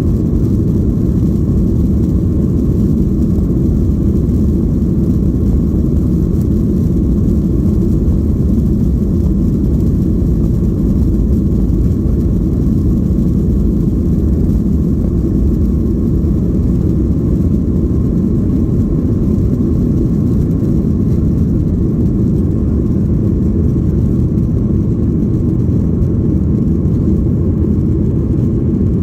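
Boeing 737-800 cabin noise during takeoff: the steady, loud low roar of its CFM56-7B jet engines and rushing air, heard from a window seat.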